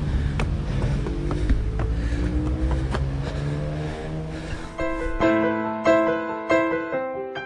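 Low rumble of camera handling, with sharp clicks, as the camera is carried on the run, and a tone slowly rising in pitch underneath. About five seconds in, piano-like outro music starts with clear, separate notes.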